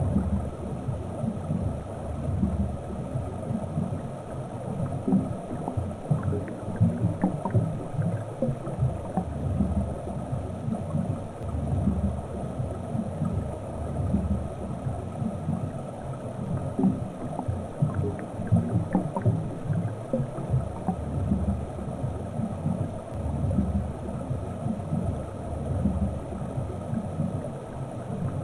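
Underwater ambience picked up by a submerged camera: a low, uneven rumbling wash of water noise with a few faint scattered ticks.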